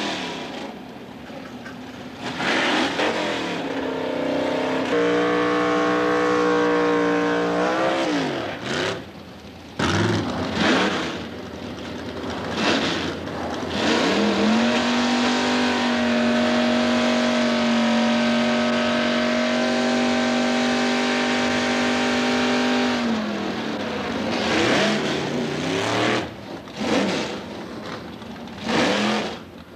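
Drag-racing cars' engines revving hard in repeated swells and blips, one held at a steady high pitch for about eight seconds in the middle before dropping away.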